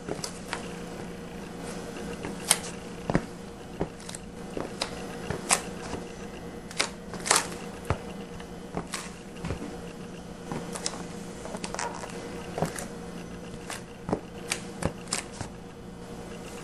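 Scattered light clicks and taps, uneven, about one a second, over a steady low hum.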